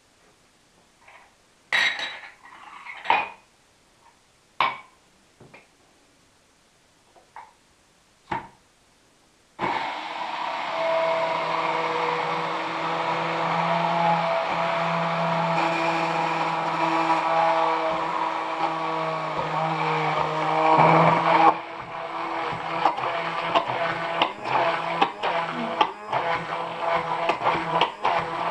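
A few light knocks and clinks of utensils, then about ten seconds in an electric blender starts and runs steadily, blending garlic and milk into an emulsified sauce. Its sound changes about two-thirds of the way through and turns more uneven, with quick ticks.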